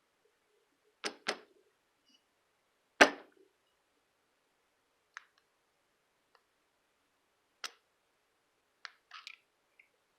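Small metal clicks and taps as tweezers work inside a padlock body to pull out a dowel rod. There is a pair of clicks about a second in, one sharp, louder click at about three seconds, then scattered faint ticks.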